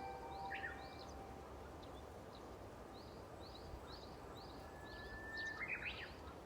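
Faint outdoor birdsong: repeated short high chirps, and near the end a Japanese bush warbler's song, a held whistle followed by a quick run of notes. The last echo of a loudspeaker chime dies away in the first second.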